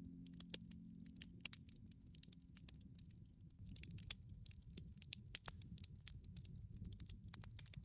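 Campfire crackling: irregular sharp pops and snaps over a low, steady rumble.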